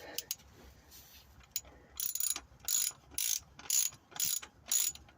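Ratchet wrench being worked on the new lower engine mount bolt, clicking in short back-and-forth strokes about twice a second from about two seconds in, after a few stray clicks.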